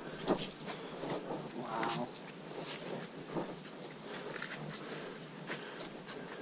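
Hikers' footsteps on a muddy, leaf-littered forest trail: irregular steps and scuffs, with a brief pitched call about two seconds in.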